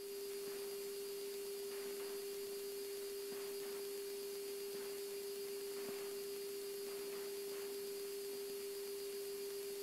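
A steady electrical hum at one unchanging mid pitch over faint hiss, heard on the airliner's cockpit radio/intercom audio feed between transmissions. It is typical of the aircraft's 400-cycle AC power leaking into the audio line.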